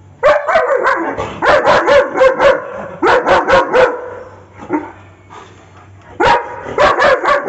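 German Shepherd barking in rapid volleys of sharp barks, with a lull of about two seconds in the middle before a last volley near the end.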